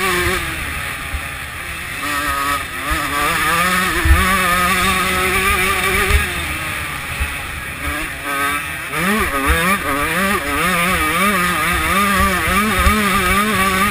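125cc two-stroke motocross bike engine running hard under racing throttle, its pitch dropping and climbing as the rider shifts and rolls on and off the gas. From about nine seconds in the revs rise and fall quickly, about twice a second.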